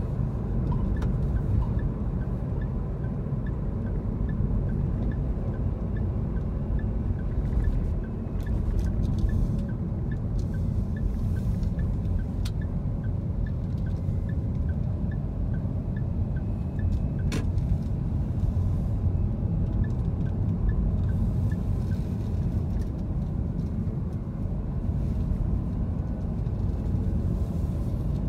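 A car driving in city traffic, heard from inside the cabin: a steady low rumble of engine and road noise. A faint regular ticking, a couple of times a second, runs through about the first half and then stops.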